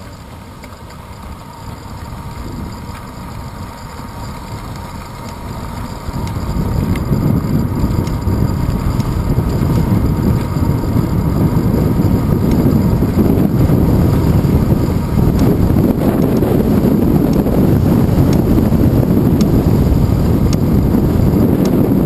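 Wind buffeting the microphone of a handlebar-mounted GoPro Hero 2 on a moving bicycle, a low rumble that grows much louder about six seconds in and stays loud.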